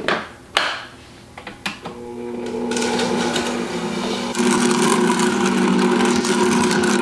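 A couple of sharp clicks as a plastic lid is pressed onto a storage container, then an electric stand mixer starts about two seconds in and runs with a steady motor hum, stepping up in speed a couple of seconds later. It is creaming butter and sugar.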